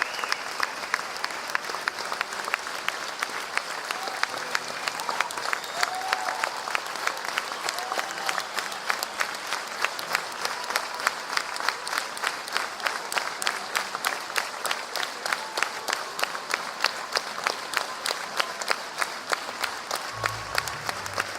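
Concert crowd applauding, the clapping falling into a fairly even beat, with scattered whistles and shouts.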